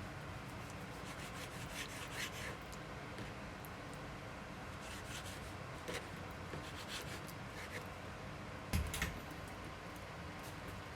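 Small handling noises indoors: light rustles and clicks over a steady low hum, with a heavier knock about nine seconds in.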